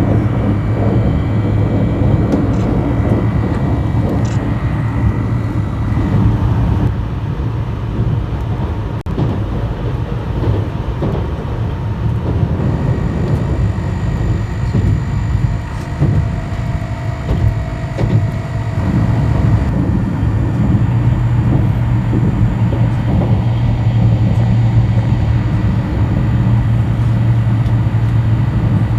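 Running noise of an electric limited express train heard from inside the passenger car: a steady rumble of wheels on the rails with a low hum. It eases somewhat in the middle and builds up again.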